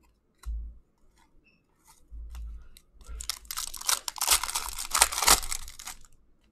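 Foil trading-card pack torn open by hand, its wrapper crackling and crinkling for about three seconds from about three seconds in, after a few soft handling bumps.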